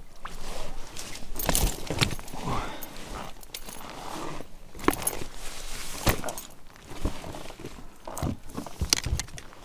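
A just-landed pike thrashing and being handled in a kayak: sharp, irregular knocks and slaps against the boat, with some rattling.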